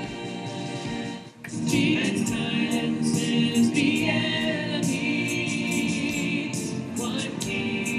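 Church worship band with drum kit and a group of singers, heard through the broadcast mix. The music drops out briefly about a second and a half in, then the full band and voices come in.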